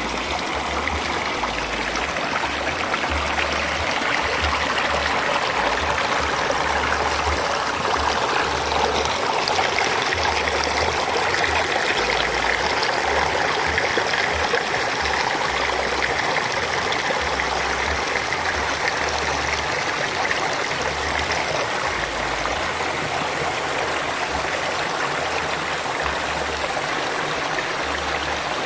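Water of a small river rushing over a waterfall: a steady, unbroken rush of flowing water.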